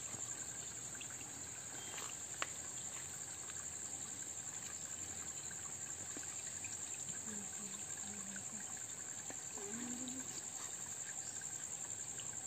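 Insects chirring steadily at a high pitch, with a single sharp click about two and a half seconds in.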